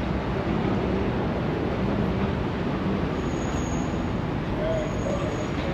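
Steady city street traffic noise: a constant wash of passing vehicles.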